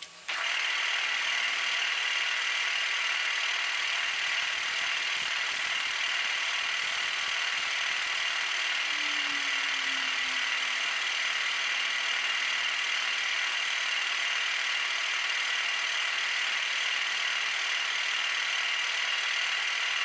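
Machine drill running steadily as the bit bores down through a rusted, snapped-off exhaust manifold stud in a cylinder head. The sound comes in abruptly just after the start and holds level, a steady mechanical running noise strongest in the upper-middle range.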